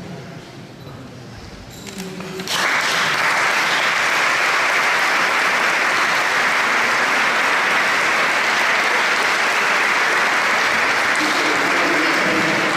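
Audience applauding: a small seated crowd's clapping starts suddenly about two and a half seconds in and keeps up steadily, after a quiet start with faint voices.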